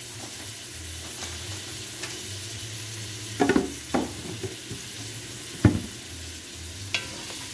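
Butter sizzling in a pot of sautéing lobster tails and baby potatoes, a steady frying hiss. A few short knocks from the pot or utensils come about halfway through, the sharpest a little after that.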